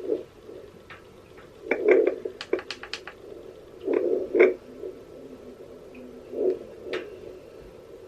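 Handheld home fetal Doppler's speaker giving irregular whooshing bursts and sharp crackles as the probe is slid over gel on a pregnant belly, with a cluster of crackles about two and a half seconds in. There is no steady heartbeat rhythm: the probe is still searching and has not yet picked up the baby's heartbeat.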